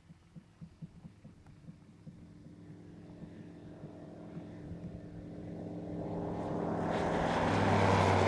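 SportCruiser light sport aircraft's Rotax 912 engine and propeller running at power as the plane rolls along the runway. It grows steadily louder as it approaches and is loudest as it passes close near the end.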